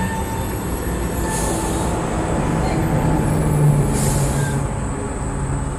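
A steady, loud mechanical rumble of an unseen engine with a low hum that swells a little past the middle. Two brief hissing bursts come about a second and four seconds in.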